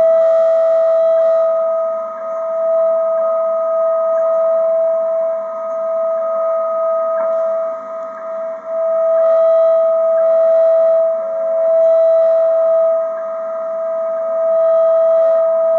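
Steady audio tone of about 600 Hz with a faint overtone, received on a Ten-Tec Paragon shortwave receiver, the kind of tone a time-signal station sends after its "universal time" announcement. The signal swells and fades, dipping briefly about 2 s in and again around 8 s.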